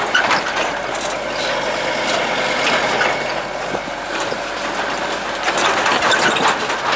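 GAZ-63 truck driving slowly over a rough track: its engine runs steadily under a constant clatter and rattle of the truck's body and fittings.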